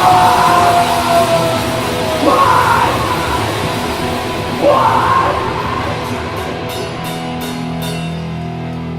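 Live heavy rock band playing with yelled vocals. Two shouts stand out, and near the end a quick run of drum and cymbal hits sounds over the held notes.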